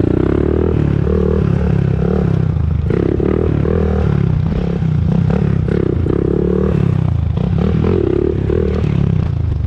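Honda TRX400EX ATV's single-cylinder four-stroke engine running under way, its speed rising and falling with the throttle. It runs without the ticking noise the rider was listening for.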